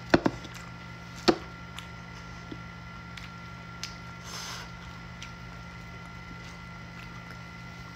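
Eating sounds: a few sharp clicks and smacks of chewing, the loudest about a second in, and a brief soft squelch around the middle as fingers pull at pieces of cooked pork in a bowl, over a steady hum.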